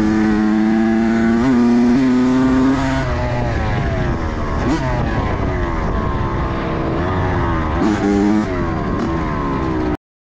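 Motorcycle engine running at a steady pitch for a few seconds, then revving up and down. The sound cuts off suddenly near the end.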